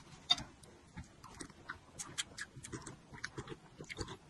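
A person chewing and slurping spoonfuls of spicy chili-oil soup close to the microphone, with irregular small wet clicks and mouth smacks.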